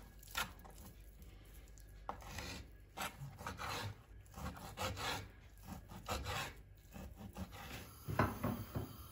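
Kitchen knife cutting raw beef into cubes on a wooden cutting board: irregular scraping strokes of the blade through the meat and against the wood, with a louder knock about eight seconds in.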